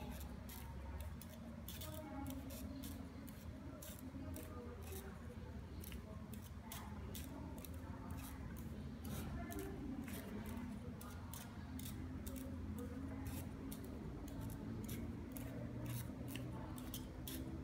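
Wooden gears and linkage joints of a hand-cranked automaton clicking and clacking as the mechanism turns, in a quick, uneven run of sharp clicks, several a second.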